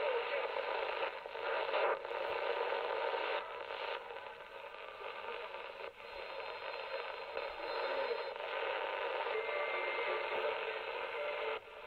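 Icom IC-718 receiver in AM mode being tuned across the 49-metre shortwave broadcast band: a steady hiss and static with weak stations buried in it, dipping briefly several times as the dial steps between frequencies. A thin whistle comes and goes in the second half. The owner finds this receiver rather noisy.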